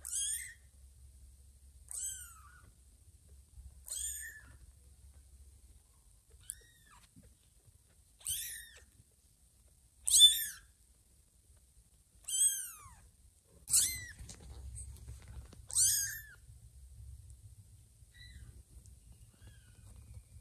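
Two-week-old kittens mewing: about eight thin, high-pitched cries, roughly one every two seconds, each dropping in pitch at the end. The loudest comes about ten seconds in.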